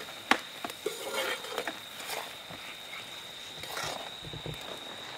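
Sugar syrup boiling and frothing in an iron kadhai as an iron ladle stirs it: a soft bubbling hiss with a few sharp clicks and knocks of the ladle against the pan, most of them in the first two seconds. A steady high insect note runs underneath.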